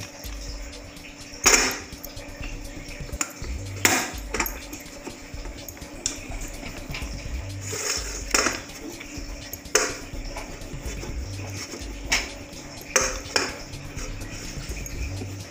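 Wooden rolling pin rolling maida dough thin on a steel plate: a low rolling rumble with a sharp knock against the metal plate every couple of seconds.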